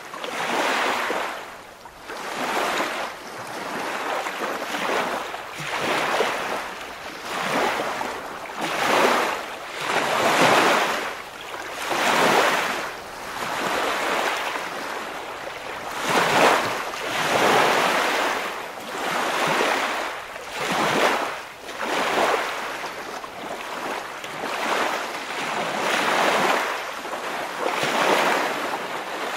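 Waves washing in, a steady rhythm of surf swelling and falling back about every two seconds.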